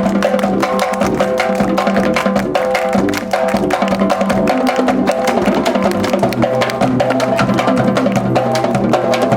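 Brass marching band playing live. The horns repeat a short riff over a held bass note, with quick, sharp percussion hits; the bass note drops lower about six seconds in.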